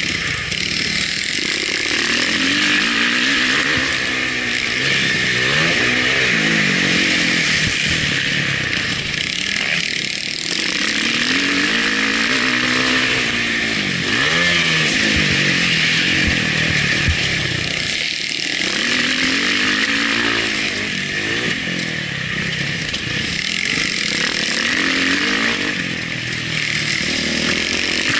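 Motocross bike engine heard up close from an onboard camera, its revs climbing and dropping over and over as the rider works the throttle and gears around the track.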